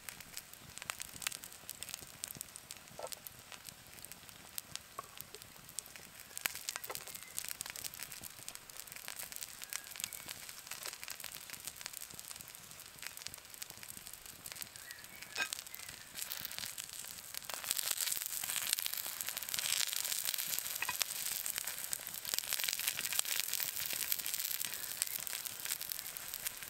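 Halved shallots sizzling in a cast iron skillet over a wood fire, a steady frying hiss with scattered small pops and crackles. The sizzle grows louder about two-thirds of the way through.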